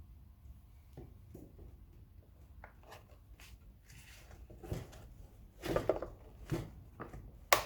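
Objects being handled and set down: a scatter of light knocks and clatters, busier in the second half, with one sharp click near the end.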